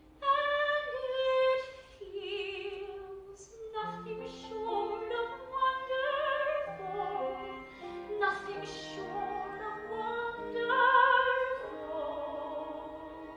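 A high voice, a woman's, singing a musical-theatre song in long, wavering held notes with strong vibrato, over a quieter accompaniment of steady lower notes.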